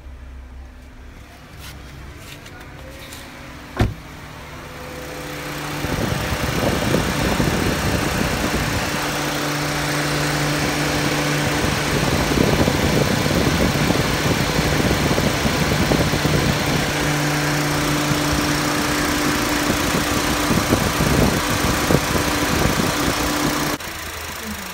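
Car engine idling with a sharp click about four seconds in, then the Honda City's electric radiator fan running with a loud, steady rush of air over the engine hum. The fan motor is working with its carbon brushes refitted. The sound drops off sharply just before the end.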